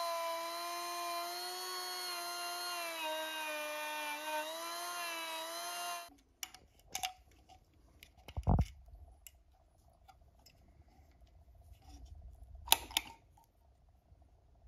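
Cordless Milwaukee rotary tool fitted with a small wire brush, running steadily on an ignition coil's terminal post. Its whine wavers slightly in pitch, then cuts off about six seconds in. A few clicks and a knock follow as small distributor parts are handled.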